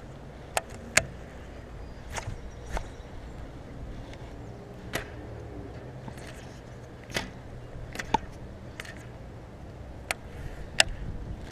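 Baitcasting rod and reel being handled during a slow jig retrieve: scattered sharp clicks and taps, irregular and about one a second, over a low steady background rumble.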